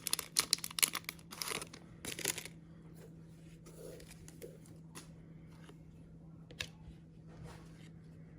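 Trading cards and their crinkly plastic and foil packaging rustling and clicking as they are handled and sorted. The crinkling is busy for the first couple of seconds, then thins to a few soft clicks over a faint steady hum.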